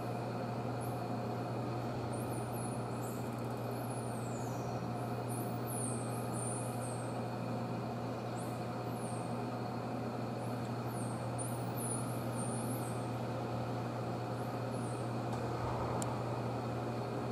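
Steady low machinery hum, with many brief, thin, high-pitched chirps gliding down and up in pitch throughout.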